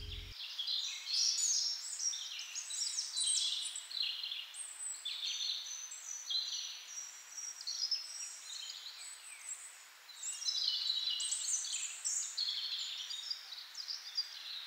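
Birds chirping and twittering, many short calls overlapping, with a brief lull about ten seconds in.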